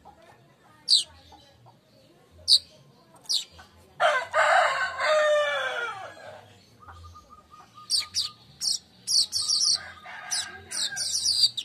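Weaver bird (manyar) calling: sharp high chirps a few times, then a fast chattering run of chirps in the last few seconds. About four seconds in, a rooster crows, the loudest sound, its call falling in pitch over about two seconds.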